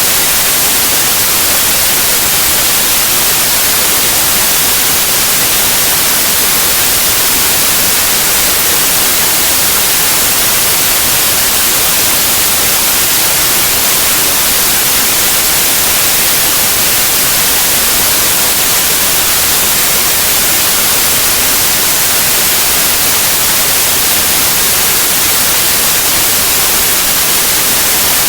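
Electronically generated white noise: a loud, steady hiss spread evenly across the whole range, strongest in the highs, with no change.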